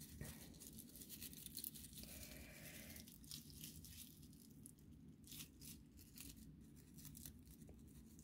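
Faint, irregular rustling and crinkling of dry raffia strands being handled and tied into a small bow.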